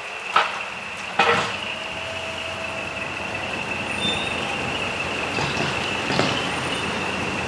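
Big trucks moving off with their engines running, with two sharp, loud bursts about half a second and a little over a second in, and a steady high-pitched tone over the whole stretch.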